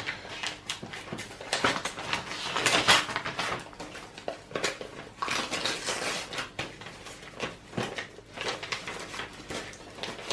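A parcel being opened by hand: packaging rustling and crinkling, with an irregular run of small clicks and clatters as its contents are handled.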